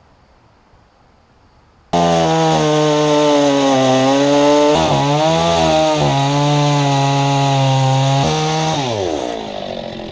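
Gasoline chainsaw running at full throttle while cutting. It starts suddenly about two seconds in, holds a high, slightly wavering pitch, then the throttle is released near the end and the pitch falls as the saw slows to idle.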